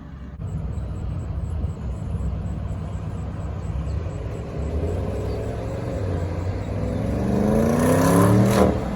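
Car engine rumbling at low speed, then revving up with a rising pitch in the last couple of seconds. It is loudest just before the end, then eases off.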